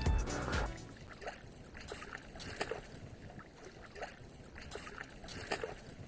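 Background music dying away in the first second, then faint outdoor ambience with a handful of soft short knocks and a steady high-pitched whine.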